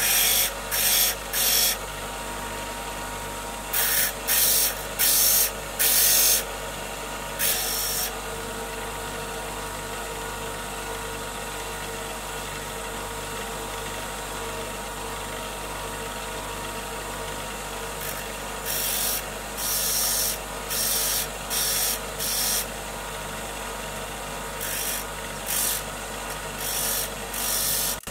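Bench grinder running with a steady hum while a small piece of mother of pearl is pressed against the wheel in short strokes, each giving a brief harsh grinding hiss. The strokes come in groups near the start, a few seconds in, and in the second half, with a long stretch in the middle of only the running motor.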